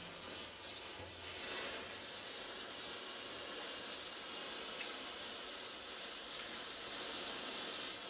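Hundreds of wooden matchsticks burning in a tightly packed sculpture, a steady hiss of match heads flaring as the fire spreads along the rows.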